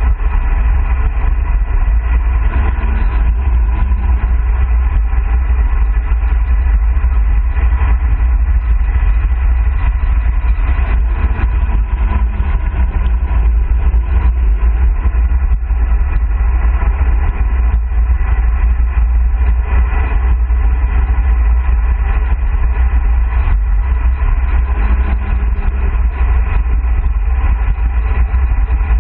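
Wind buffeting the camera microphone on a road bike descending a mountain pass at about 40–50 km/h: a loud, steady, deep rumble.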